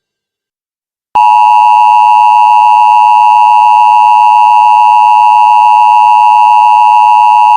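About a second of silence, then the Emergency Alert System attention signal starts: a loud, steady electronic two-tone sound that holds without change.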